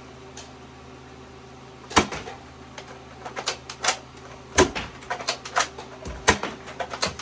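A quiet stretch, then from about two seconds in an irregular run of sharp clicks and knocks, a dozen or more, with the hardest strikes about two seconds in, in the middle and near the end.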